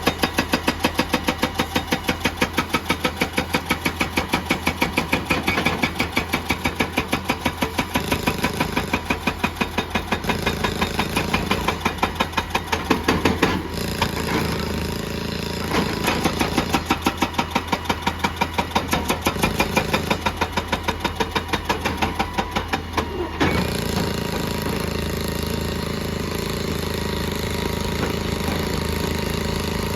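Excavator's hydraulic rock breaker hammering rock in rapid repeated blows over the diesel engine, with a short break about 14 seconds in; about 23 seconds in the hammering stops and the engine runs on steadily.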